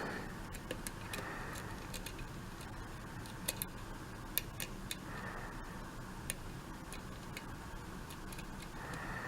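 Faint, irregular light clicks of a lock pick working the pins of a Sargent mortise cylinder under tension, with the core in a deep false set; a few clicks stand out louder in the middle.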